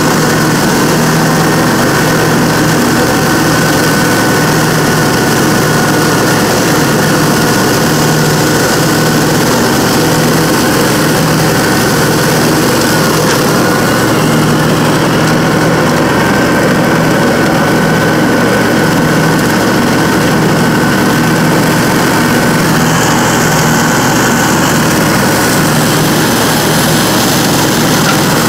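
Dixie Chopper zero-turn riding mower running steadily while its deck chops leaves: an even engine drone with a steady high whine over it.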